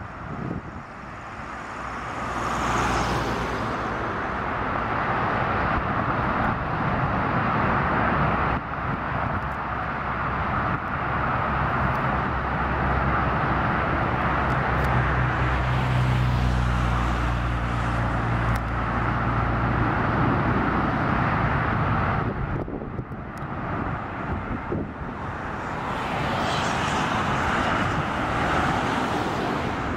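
A Boeing 777-200's GE90 turbofans on final approach: a steady jet rush that builds near the end as the airliner comes close overhead. Street traffic runs underneath, with a vehicle engine's low hum through the first two-thirds.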